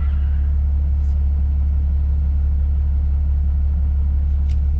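Steady low rumble of a vehicle's engine and road noise heard from inside the cabin, with two faint short ticks, about a second in and near the end.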